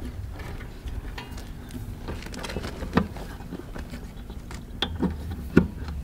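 A few small plastic clicks and handling noises as wiring harness connectors are fitted onto an RV water heater's control board, the sharpest click about five and a half seconds in, over a low steady background rumble.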